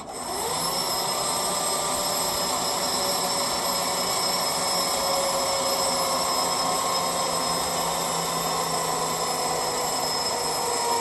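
Spring-charging motors of a 220 kV circuit breaker's three independent operating mechanisms running to charge the closing springs. They start with a rising whine, run steadily, and stop near the end once the springs are charged.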